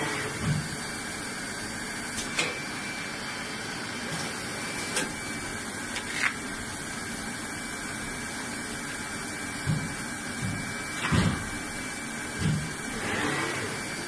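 EPE foam hot-air laminating machine running, with the steady hiss of its blower. Short knocks and clunks come at irregular intervals as the jig frames and the tray are handled and moved.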